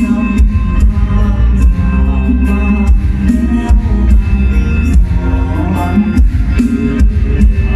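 Loud live music from a Thai mor lam stage band: heavy bass under a steady drum beat, with pitched instrument lines on top.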